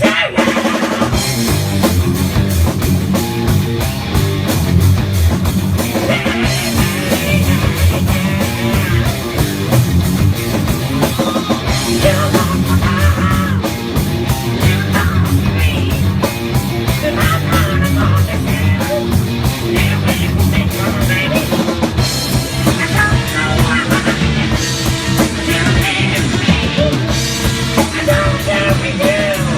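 Rock song with drum kit, electric guitar and singing playing loudly from a jukebox, the track starting about a second in.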